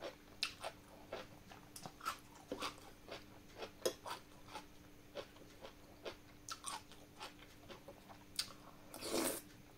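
Faint, irregular crunching of someone chewing crisp marinated cabbage close to the microphone, with a louder noisy sound about nine seconds in.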